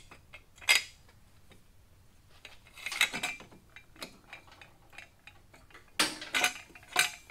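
Metal hand tools clinking: a wrench working on rusted exhaust header nuts and tools handled on the metal lift table. A few separate sharp clinks, the loudest of them near the end.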